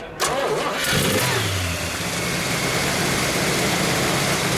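Chrysler 383 four-barrel V8 starting: it catches about a quarter second in, swells briefly, then settles into a steady, smooth idle.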